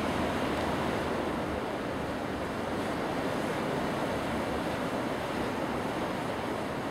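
Steady rushing of surf, with wind on the microphone.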